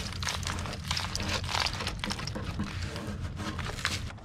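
A gloved hand raking a pile of acorns out of a wall cavity behind rotten wood siding: the acorns spill and knock together in a steady run of small irregular clicks and rustles.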